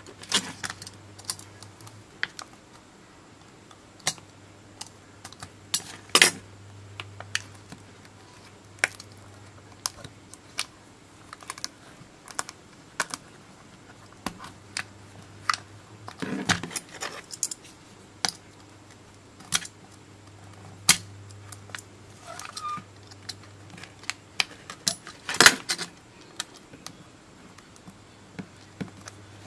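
Aluminium-laminate pouch of a 3.7 V 4000 mAh lithium-polymer battery crinkling and crackling as fingers work its folded foil edge: irregular sharp crackles and clicks, a few louder ones about 6, 16 and 25 seconds in.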